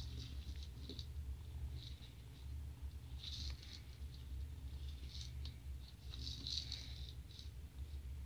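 A kitten batting toys across a tile floor: short clusters of light scratches and taps, scattered and irregular, busiest a little past three seconds in and again near the end, over a steady low hum.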